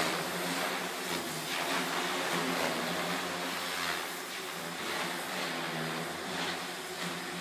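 MSH Mini Protos electric RC helicopter in flight: its brushless motor and spinning rotor blades give a steady whir that wavers a little in pitch and loudness as it manoeuvres.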